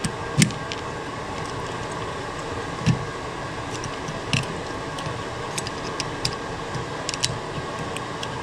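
Scattered small, sharp metal clicks and taps of a small steel tool working a spring-loaded valve retaining ring out of its bore in a 200-4R transmission front oil pump, over a steady background hum.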